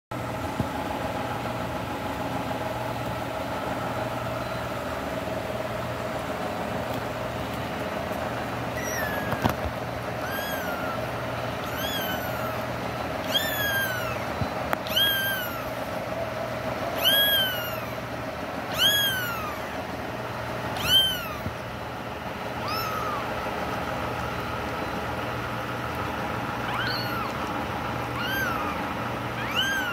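A kitten mewing about a dozen times in short, high-pitched calls that each rise and then fall, starting about a third of the way in and coming every second or two, over a steady background hum.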